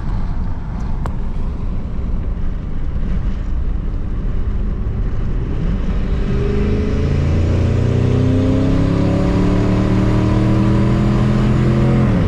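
Turbocharged Ford 5.4-litre Triton V8 in a 2003 F-150 accelerating hard on about 11 psi of boost, heard from inside the cab. Road and engine rumble at first, then the engine note climbs steadily in pitch toward about 5,000 rpm and falls sharply at the very end.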